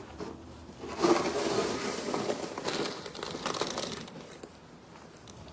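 Rustling, crinkling noise that starts about a second in, lasts about three seconds, then fades.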